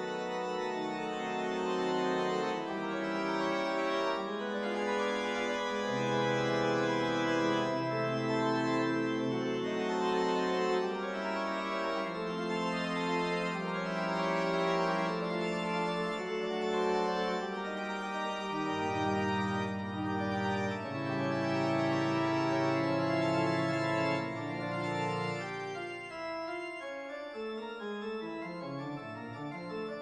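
Background music of slow, sustained organ-like chords over a bass that shifts every few seconds, thinning out and getting quieter near the end.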